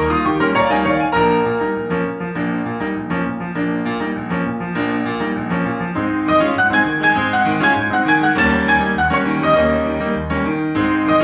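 Instrumental piano music with a steady run of notes over sustained chords.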